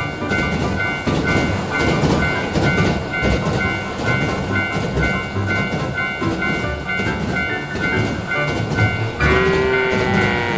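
Japanese railroad crossing alarm beeping in a steady rapid two-tone ring over the rumble of a running train. Near the end a horn-like tone sounds, falling in pitch.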